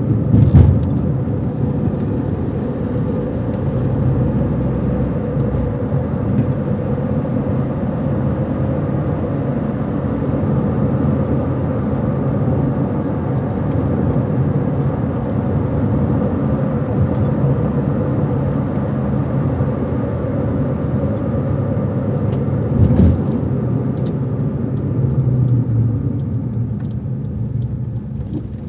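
Steady road noise of a car being driven: engine and tyre rumble, with two brief thumps, one just after the start and one later on.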